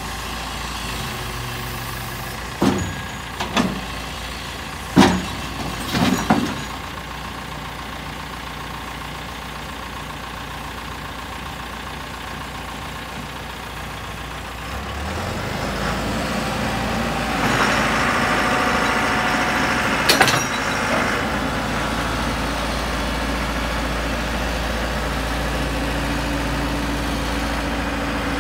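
Caterpillar 416B backhoe loader's four-cylinder diesel idling, with several sharp metal clunks a few seconds in as the loader bucket and linkage are worked. About halfway the engine speeds up and runs louder under hydraulic load while the machine's hydraulics work, with one more clunk.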